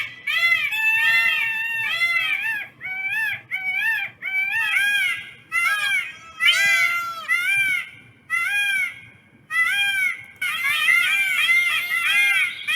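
Peafowl calling: runs of short cries, each rising and falling in pitch, several a second with brief pauses between runs. From about ten seconds in the calls come thicker and overlap, as from more than one bird.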